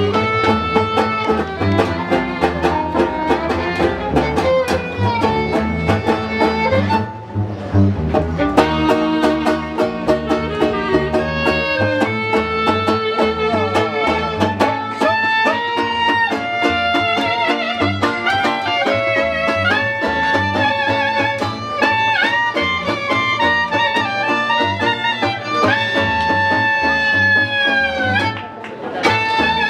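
Klezmer band playing live: fiddle and clarinet carrying a melody over plucked upright bass and banjo. The music breaks off briefly about seven seconds in and again near the end.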